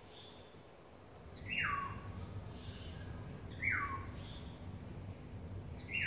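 Oriole calling three times, about two seconds apart: each call a short harsh nasal note that slides down in pitch.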